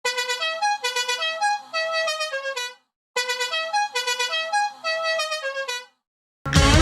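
Hockey arena goal horn sounding a short tune of stepped notes, played twice with a brief pause between. Loud goal-song music cuts in right at the end.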